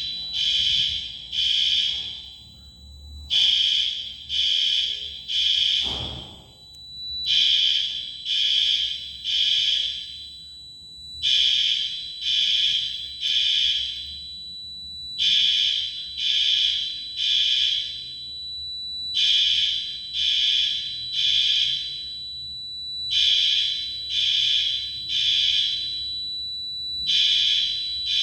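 Building fire alarm sounders during a fire alarm test, sounding the temporal-three evacuation pattern: three short high-pitched beeps, a pause, then again, repeating about every four seconds.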